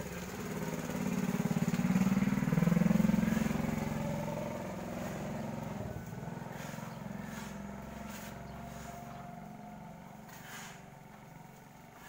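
Small motorbike riding past close by, its engine getting louder to a peak about two to three seconds in, then fading away.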